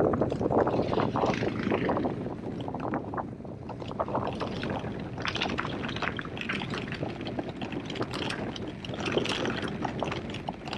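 Mountain bike rolling over rough, loose trail: tyres crunching and the bike rattling, with many irregular clicks and crackles.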